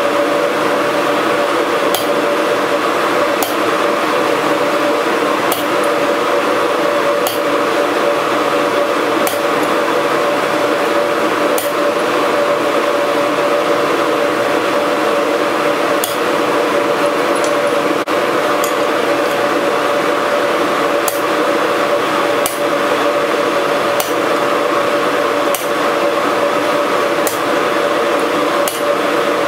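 Hammer striking a hot steel bar on an anvil, sharp strikes every second or two, over a loud steady roar with a hum, as of shop machinery running.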